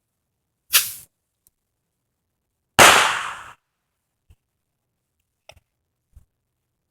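Two small fireworks going off with sharp bangs, the first about a second in and the second, louder and trailing off longer, about three seconds in, followed by a few faint ticks.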